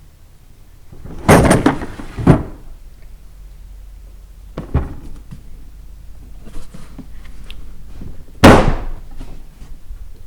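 Loud hard-plastic clacks and thuds of the Husky 270-piece mechanics tool set's case being handled and shut, its drawers and the tools inside rattling. There is a loud clatter about a second in, a lighter knock midway, and another sharp slam near the end.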